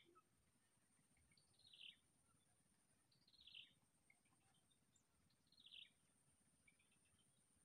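Faint bird calls: a short, falling chirp repeated three times, about two seconds apart.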